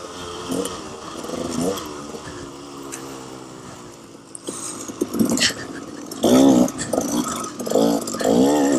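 Two-stroke KTM 300 XC-W dirt bike engine revving up and down twice, then running quieter for a couple of seconds. In the last few seconds, short, louder wavering sounds cut in.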